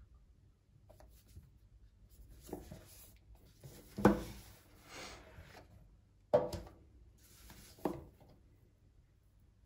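Handling noise of a phone in a plastic case being turned over in the hands: soft rubbing and scraping, with three sharp knocks, the loudest about four seconds in.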